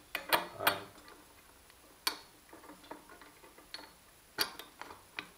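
Metal clicks and clinks of a wire whisk being handled in a stainless steel mixing bowl and fitted onto a KitchenAid stand mixer's beater shaft. There are three quick clicks in the first second, then single clicks spaced a second or so apart.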